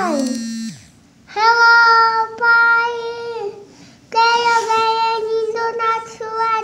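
A young child singing in a high voice: a falling note at the start, then two phrases of long held notes with a short pause between them, the second phrase breaking into shorter notes near the end.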